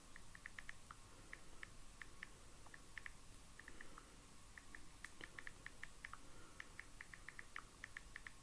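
Faint typing on a computer keyboard: irregular runs of light key clicks with short pauses between them.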